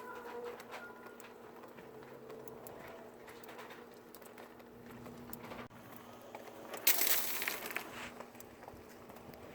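Faint, brief screeching tones at changing pitches from an unidentified sound in the sky, over a low steady hum and scattered dripping ticks from melting ice. About seven seconds in comes a loud rustling burst lasting about a second, like a tarp flapping in the wind.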